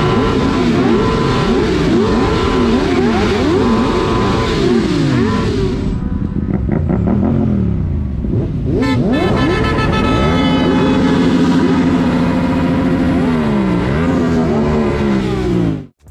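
Several sport motorcycle engines revving and pulling away together, each one's pitch climbing and dropping through the gears so that the tones overlap and cross one another.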